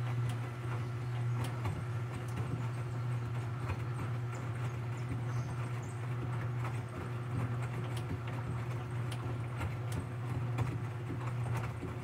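Enxuta Master 3 front-loading washing machine washing a load of bed linen and towels: the motor turns the drum with a steady low hum, with irregular light clicks and knocks as the load tumbles.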